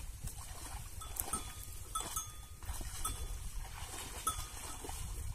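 Light metallic clinks: about six short ringing pings at uneven intervals, over a steady low rumble.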